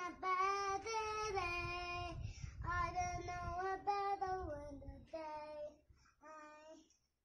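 A high voice singing a slow melody in long held notes, the line stepping down and fading out near the end.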